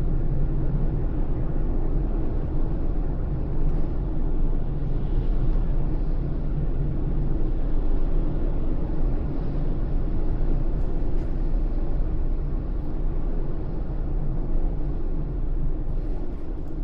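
Car driving along, a steady low rumble of engine and tyre noise heard from inside the cabin.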